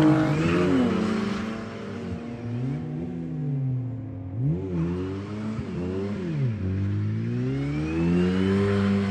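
Rally car engine revving hard through the gears, its pitch dropping at first, then rising and falling in several short swoops, and climbing in one long rise over the last couple of seconds.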